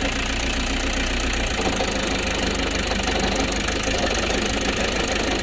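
A narrowboat's inboard diesel engine running with an awful rattling clatter. The engineer says it sounds a little like a failing drive plate.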